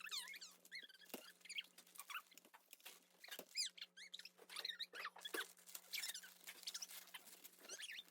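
Faint crinkling and rustling of wrapping and packaging being handled and torn open, in short irregular crackles.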